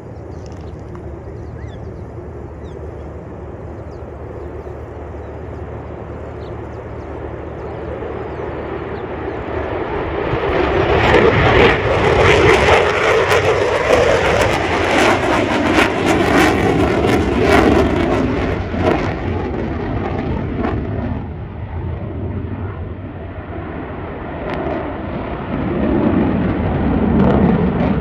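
Lockheed Martin F-22 Raptor's twin Pratt & Whitney F119 jet engines on takeoff, passing overhead: a jet roar that builds for about ten seconds, is loudest with a crackle as the fighter goes by, then eases off. The roar rises again near the end.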